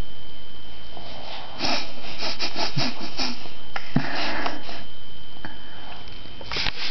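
A baby sniffing through the nose: quick, short sniffs in several runs with pauses between.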